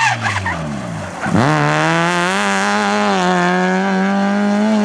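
Citroën Saxo rally car's engine, its revs falling as it slows for the bend. About a second and a half in they jump up sharply and hold high as it accelerates hard away.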